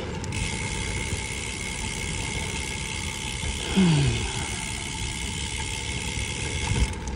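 Gravel bike rolling over rough, cracked pavement: a steady rumble of tyres and wind noise, with a brief falling tone about four seconds in.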